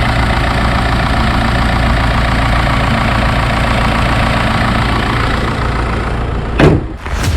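Direct-injection petrol engine idling steadily with a dense ticking clatter, the normal sound of injectors and high-pressure fuel pump rather than a valvetrain fault. About six and a half seconds in, a loud whoosh cuts across it.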